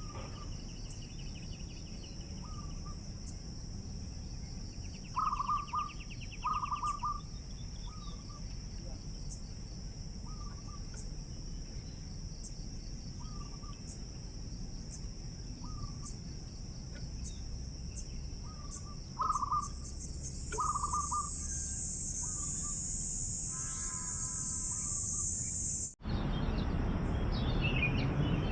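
Zebra doves cooing in short repeated notes, a louder pair about five seconds in and again near twenty seconds, over a steady high-pitched insect drone. Near the end the sound cuts off sharply and louder rustling noise follows.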